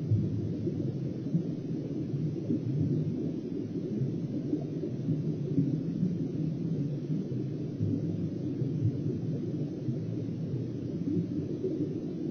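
Steady low, muffled rumble of water and the camera housing picked up by an underwater camera's microphone beneath the ice.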